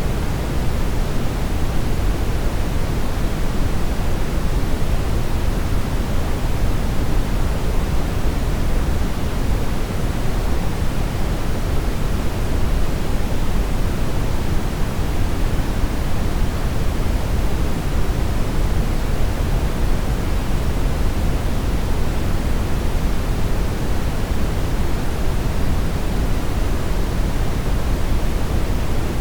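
Television static: a steady, even hiss of noise with no break or change, heavier in the low end.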